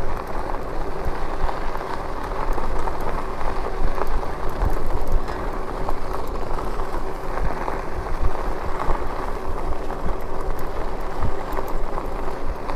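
Lectric e-bike tyres rolling over a dusty dirt road, a steady crackling patter of grit under the wheels with wind and rumble on the helmet or chest-mounted camera.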